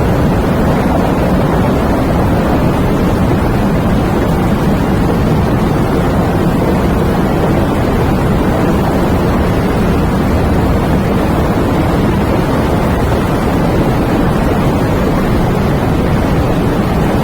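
Steady wind and rain ambience: a dense, even rush of noise, heaviest in the low range, with no gusts or breaks.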